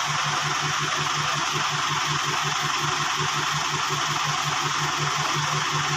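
A small engine running steadily, with an even low pulsing of about five beats a second under a loud hiss.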